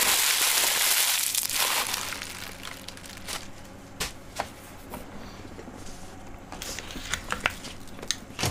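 Packaging crinkling for about the first two seconds, then dying away. It is followed by scattered light taps and clicks, with a cluster near the end, as a phone box is handled and set down on a rubber desk mat.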